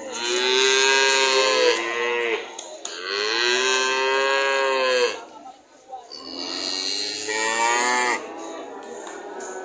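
A calf mooing three times, each call about two seconds long, with a fainter call near the end.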